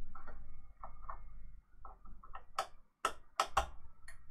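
Screwdriver unscrewing the screws of the screw-terminal block on a 3D-printer control board, a string of irregular small clicks and ticks, with a few sharper clicks in the second half.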